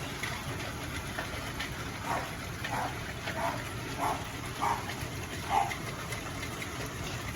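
Severe hail, ping-pong-ball-size stones, pelting down steadily in a dense hiss of small impacts. Through it come about six short calls, roughly one every half second to a second, from about two seconds in to near six seconds.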